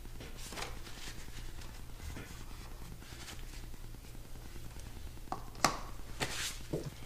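Faint plastic handling clicks and rustles as a plastic funnel is worked into an engine's oil filler neck, with two sharper clicks near the end, over a steady low hum.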